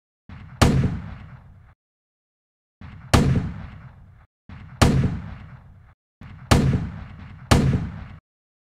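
Five loud, sharp bangs, each ringing out in a long echoing decay, falling in four separate bursts with dead silence between them.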